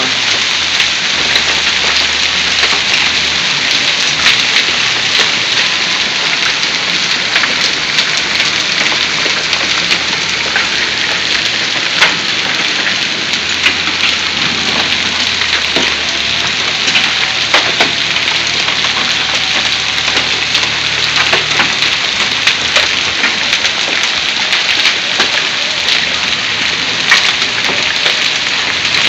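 Heavy rain mixed with hail pouring down: a dense, steady hiss peppered with many sharp ticks of hailstones striking the ground and nearby surfaces.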